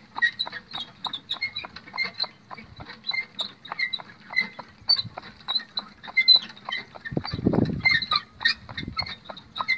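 A pony's hoofbeats on an asphalt lane as it pulls a two-wheeled gig, an even clopping about three to four times a second, with small high-pitched squeaks and ticks from the harness and cart. About seven seconds in comes a louder, lower sound lasting about a second.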